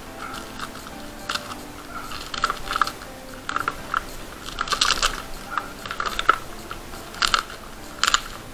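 Bubble wrap crinkling and rustling in irregular crackles as it is handled and pulled off a small cardboard box.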